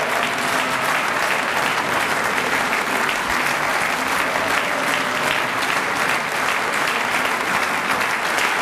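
A large audience applauding: dense, steady clapping from several hundred people, sustained without a break.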